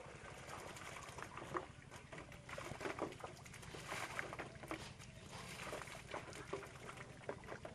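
Water and wet straw pouring out of a tipped aluminium pot into a shallow metal tray: splashing with many small irregular knocks and ticks as the debris lands and the pot shifts against the tray's edge.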